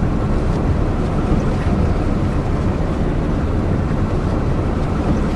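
Steady low rumble of a moving bus, heard from inside the cabin.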